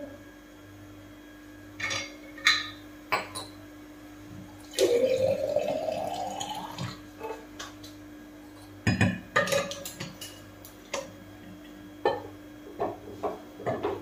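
Kitchen clatter of utensils and dishes: sharp knocks early on and a run of small clinks near the end. About five seconds in, liquid is poured into a vessel for roughly two seconds, its pitch rising as the vessel fills.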